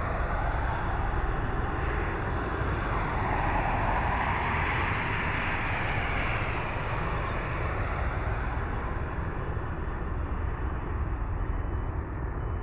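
Jet engines of a Southwest Airlines Boeing 737 during its landing rollout: a steady rushing roar that swells a few seconds in and then slowly fades as the airliner rolls away. Faint short high beeps repeat under a second apart underneath.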